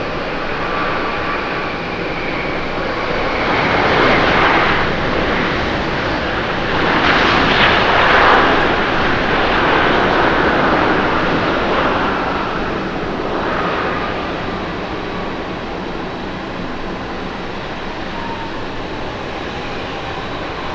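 The Rolls-Royce Trent XWB jet engines of an Airbus A350-900 during the landing rollout: a steady rushing roar with a high engine whine that falls slowly in pitch. It swells louder about four seconds in and again, loudest, around eight seconds in, then eases off.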